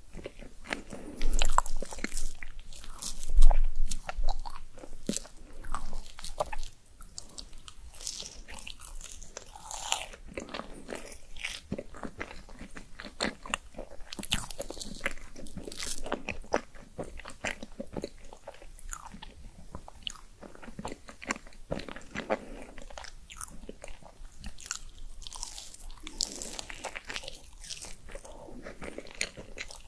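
Close-miked eating: biting and chewing with crunches and wet mouth clicks, loudest in the first few seconds, then steady chewing.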